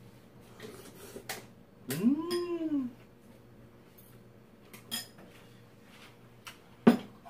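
Spoon and chopsticks clinking against bowls and dishes in a few separate clicks, the loudest near the end. About two seconds in comes one short vocal call that rises and then falls in pitch.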